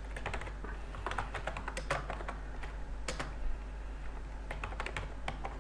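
Computer keyboard typing: a quick run of keystrokes, a pause with a single stray key, then another short burst near the end, over a steady low hum.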